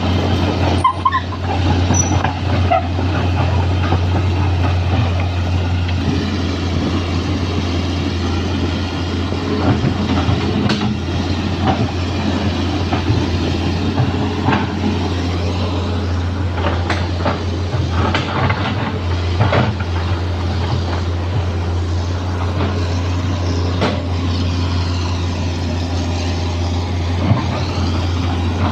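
Excavator's diesel engine running steadily, with scattered metallic clanks and knocks, some of them sharp.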